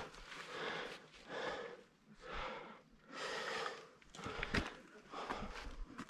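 A climber breathing hard, with a heavy breath about once a second. A few sharp knocks of boots and hands on rock come in the second half.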